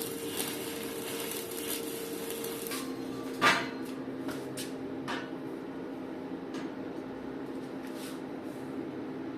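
Crackling hiss of a welding arc over a steady machine hum, stopping about three seconds in. It is followed by one sharp metal clank and several lighter metal clinks as steel parts are handled.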